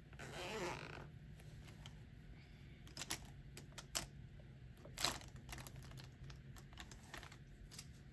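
Pencil on sketchbook paper: faint scratchy strokes with scattered light clicks and taps.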